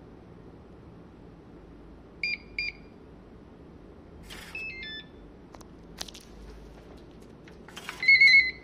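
Glass-door digital lock beeping as it is operated: two short beeps about two seconds in, a short run of stepped electronic tones over a rattle about halfway through, a sharp click, then a louder warbling beep near the end.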